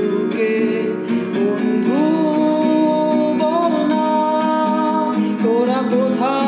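Bengali pop song: acoustic guitar strumming under a sung voice holding long, wavering notes that glide between pitches.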